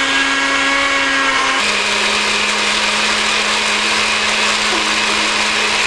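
NutriBullet blender motor running steadily, blending fresh cilantro, mint, chillies and garlic with a little water into a green chutney. Its hum drops to a slightly lower pitch about a second and a half in.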